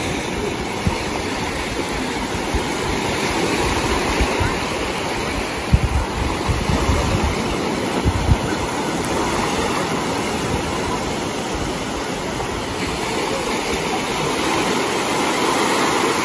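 Small ocean waves washing and fizzing onto a sandy shore, a steady rush of surf with irregular low rumbles under it.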